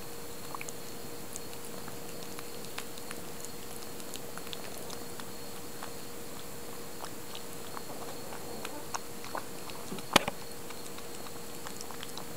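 Siamese kitten lapping raw egg from a bowl: small, irregular wet clicks of its tongue and mouth, with one much sharper click about ten seconds in. A faint steady hum runs underneath.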